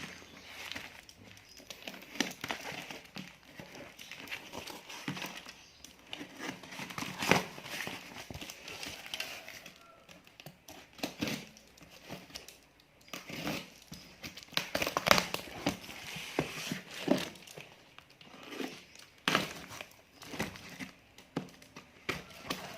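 Packing material being unwrapped by hand, crinkling and rustling in irregular bursts with occasional sharp crackles.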